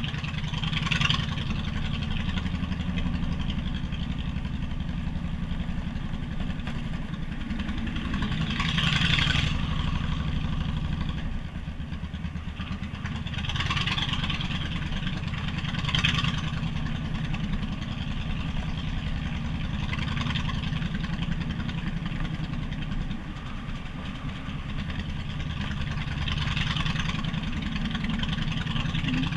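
Motorcycle engine running steadily while riding at a moderate speed, a continuous low rumble. About five short swells of rushing noise rise over it and fade.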